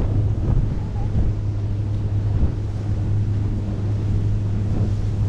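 Heavy, steady wind buffeting the microphone while riding fast across open water, over the rushing of churning wake and spray.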